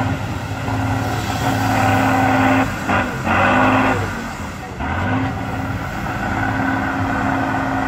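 Diesel engine of an off-road trial truck running hard at high revs, puffing black smoke. The revs dip and pick up again twice.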